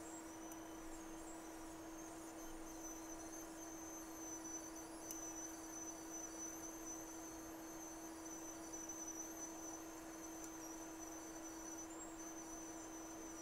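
Faint steady electrical hum with a thin high-pitched whine above it, from the microsoldering bench equipment.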